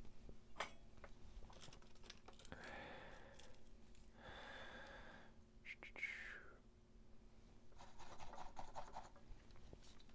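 Faint handling sounds of soldering tools and parts on a cutting mat: a few light clicks and taps, soft rustles and a couple of breaths as the soldering iron and solder are picked up.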